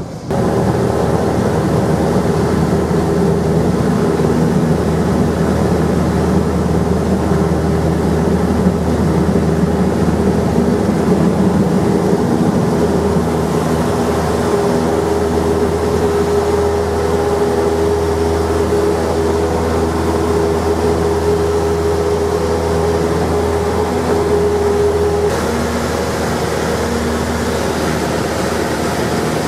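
Single-engine Cessna 172's four-cylinder piston engine and propeller running at high power through the takeoff roll and climb, heard from inside the cabin. The steady engine note drops slightly about 25 seconds in.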